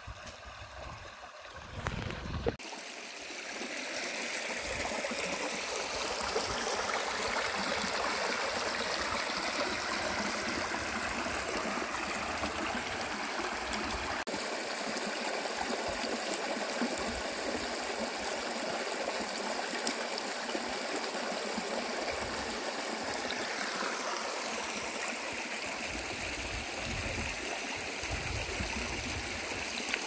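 Shallow rocky stream running and gurgling over boulders: a steady rush of water that swells up over the first few seconds and then holds.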